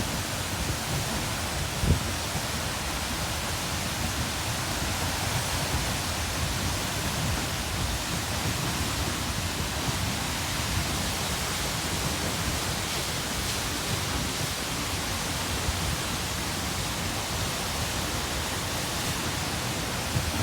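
Waterfall with a steady, unbroken rush of falling water that fills the whole range from low to high. There is a brief low thump about two seconds in.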